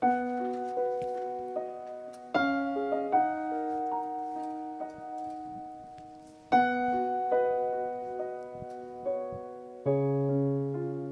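Slow solo piano introduction: a chord is struck at the start and again about every three to four seconds, each left ringing and fading, with single melody notes between. A low bass note comes in with the last chord near the end.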